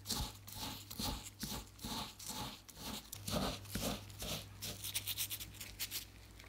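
Fingers rubbing and pinching biscuit crumbs against the sides of a small glass cup, mixing in food colouring: an irregular run of quick rubbing strokes that stops shortly before the end.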